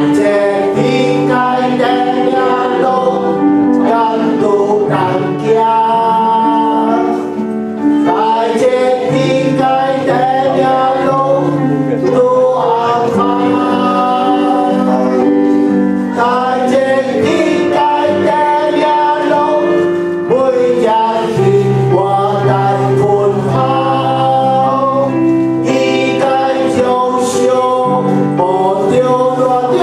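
Voices singing a Christian worship song with instrumental accompaniment, the melody moving over held chords and sustained bass notes.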